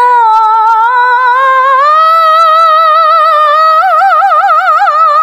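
A woman reciting the Quran in melodic tilawah style, holding one long unbroken phrase: the voice steps up in pitch about two seconds in and breaks into a fast wavering ornament near the end.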